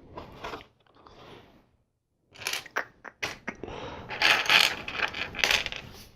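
Plastic LEGO pieces clicking and rattling as they are handled and pressed together, with a few sharp clicks and, about four seconds in, a longer, louder rattle of loose pieces being sifted through.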